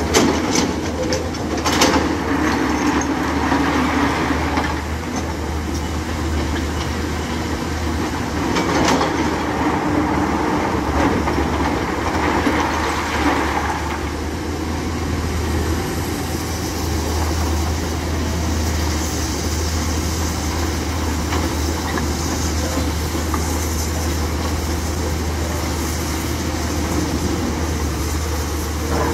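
Hyundai 210 crawler excavator's diesel engine running steadily with a low hum while the machine works. Crushed rock clatters out of the bucket in the first couple of seconds, and the noise swells with louder rattling a few more times as the bucket digs and swings.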